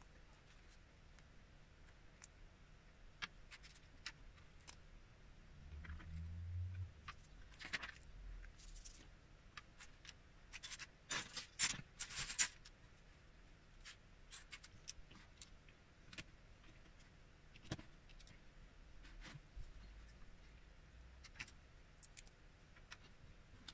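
Faint, scattered clicks and clatter of plastic Lego bricks being picked from a loose pile and pressed onto a model. There is a louder burst of rustling clatter about halfway through and a dull low thump about six seconds in.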